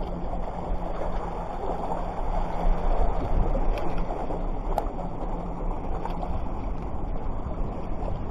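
Steady rushing noise of wind and surf on the microphone, with a few faint clicks.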